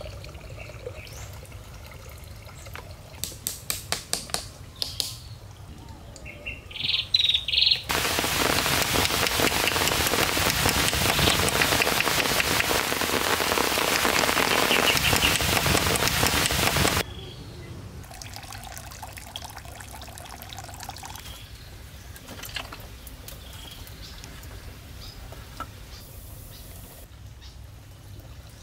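Short wooden log pieces knocking sharply against each other about a dozen times, with birds chirping. From about 8 s to 17 s a loud steady rushing hiss starts and stops abruptly, followed by faint scattered handling sounds.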